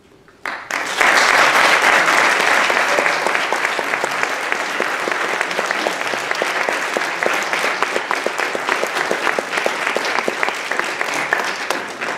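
Audience applauding: clapping breaks out suddenly about half a second in, is loudest for the first couple of seconds, holds steady, then dies away near the end.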